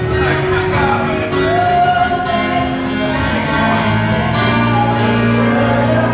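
Gospel music during a church service: singing over sustained instrumental chords.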